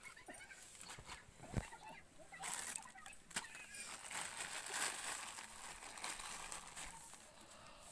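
A plastic snack packet crinkling as a hand squeezes and presses it, in a few spells of crackling, with a short knock about one and a half seconds in.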